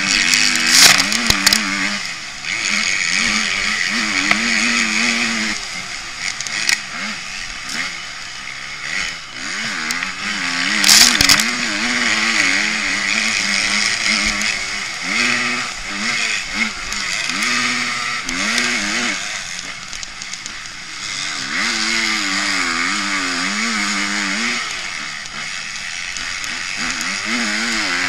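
Motocross bike engine heard from a camera mounted on the bike, revving up and falling back again and again as the rider accelerates and shifts, over a constant rushing hiss. Two loud sharp knocks stand out, about a second in and about eleven seconds in.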